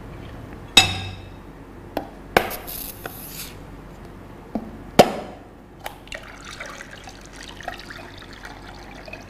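A kitchen knife striking a whole coconut to crack it open: a few sharp knocks, the loudest about five seconds in. Then coconut water runs out of the crack and trickles into a ceramic bowl.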